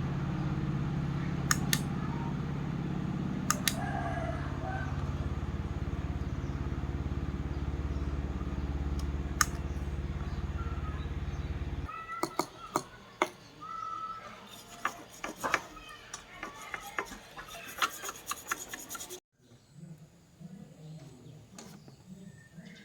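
A steady low hum with a few sharp clicks over it, which cuts off abruptly about twelve seconds in; scattered clicks and taps follow.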